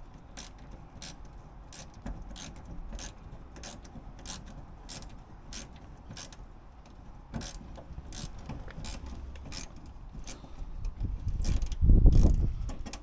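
Hand ratchet wrench being worked back and forth on a hard-to-reach bolt, its pawl clicking about twice a second. Near the end comes a louder low clatter and rumble.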